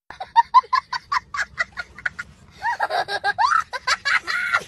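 A young child laughing hard in high-pitched, rapid bursts, about five a second. After a short break it turns into longer, wavering peals of laughter.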